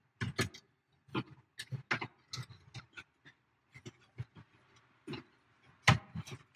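Irregular clicks and knocks of an aftermarket camera module box and its metal bracket being handled and fitted into an open truck dash cavity.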